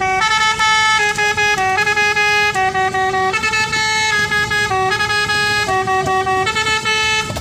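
Indonesian bus 'telolet' horn, a set of air horns sounding several notes together, playing a continuous stepped melody that changes pitch every half second or so.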